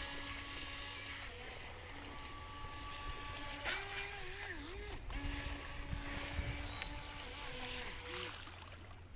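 Small electric RC jet boat running on the water: its motor and jet pump whine at steady pitches that drop out and come back at new pitches as the throttle is worked, wavering about four seconds in, over the hiss of the jet's spray.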